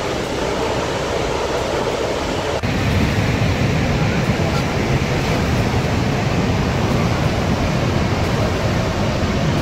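Steady rushing noise of the Horseshoe Falls at Niagara, masses of water pouring and churning. About two and a half seconds in it jumps louder and deeper.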